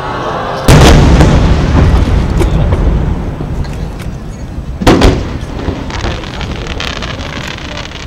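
Aerial firework shells bursting overhead: a loud boom just under a second in, then a long rolling rumble. A second sharp boom comes about five seconds in and trails off the same way.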